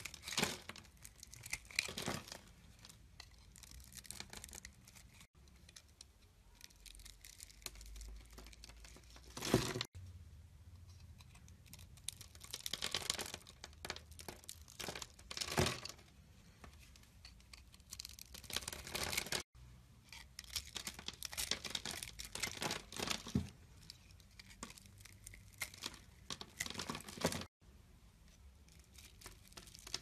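Utility knife blade cutting through a bar of soap that has been scored into a grid, the small cubes crunching and breaking away in quick, irregular crisp scrapes, a few of them louder. The sound drops out abruptly a few times.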